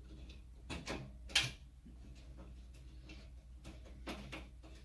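Small clicks and knocks of a screw being worked into the steel rack frame, with a sharper metal clack about a second and a half in, over a low steady hum.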